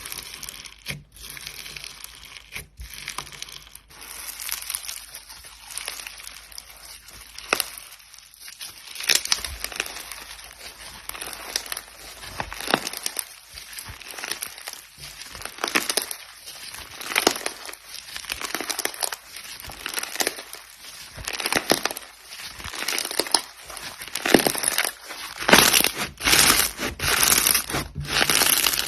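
Slime being squeezed and worked by hand, giving dense, irregular sharp crackles and squishes that grow louder and thicker near the end.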